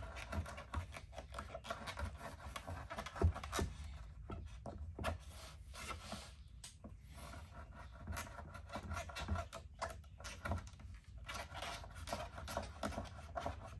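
Irregular scraping and rubbing with many small clicks, a folding knife being drawn through material and handled during cut testing. The sharpest click comes about three seconds in.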